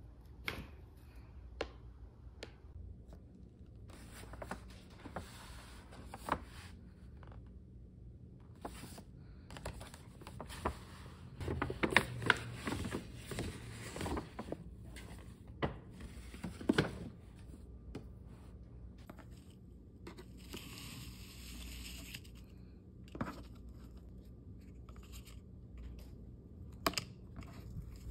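Paper shopping bag and cardboard gift box being handled and unwrapped: irregular rustling and crinkling of paper, with scattered light knocks and clicks, the loudest near the middle.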